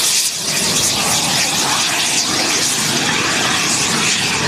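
Engine of a large radio-controlled aerobatic model aircraft running in flight: a loud, steady, noisy drone.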